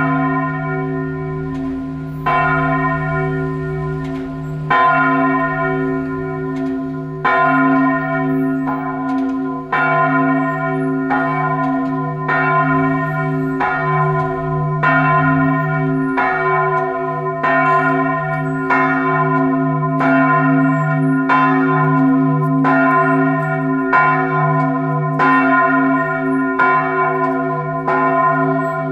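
Church bells of the Duomo di San Giorgio tolling a death knell (campane a morto). Single strokes come about every two and a half seconds at first, then closer together, roughly every second and a bit, from about halfway through. The deep hum of a large bell rings on under them.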